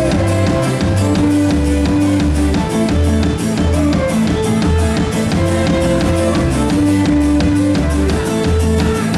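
Live band playing an instrumental passage: guitar over a steady drum-kit beat and a repeating bass line.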